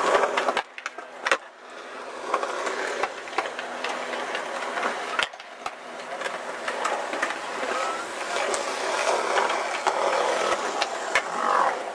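Skateboard wheels rolling over a concrete skatepark surface, with a few sharp clacks of the board spaced through it.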